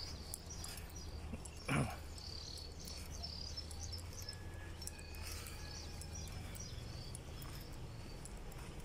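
Outdoor ambience of insects and birds chirping, high-pitched and scattered, over a low steady rumble. A short knock just under two seconds in is the loudest sound.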